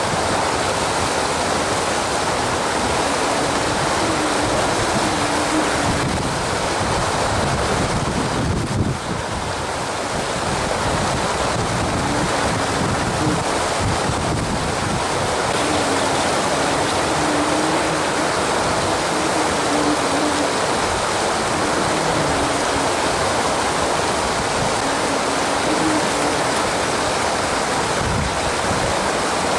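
Water rushing steadily over a low weir and through the white-water below it. A faint wavering hum from the RC bait boat's motor comes and goes over the rush.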